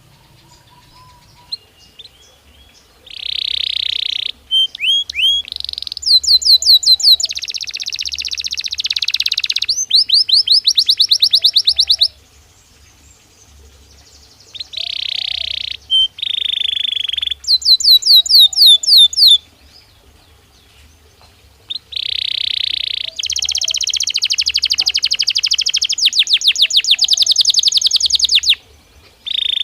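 Belgian canary singing in three long bouts of rapid trills and rolls, with pauses of a couple of seconds between them and a brief final phrase near the end.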